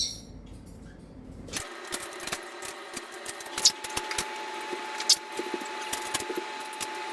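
Handling noise as the camera is picked up and moved: rustling and scattered sharp clicks and knocks, with the sound turning thin about a second and a half in and a faint steady tone joining about halfway through.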